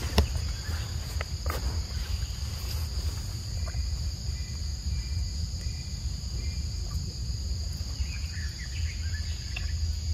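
Steady outdoor insect chorus, held on two high tones throughout, over a constant low rumble. There is a sharp click just after the start and another about a second and a half in, and a few short chirps near the end.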